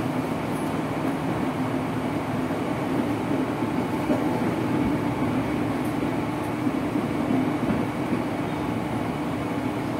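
Running noise inside a JR 205-series electric commuter train's motor car in motion: a steady rumble of wheels on track with a steady hum that grows louder about three seconds in.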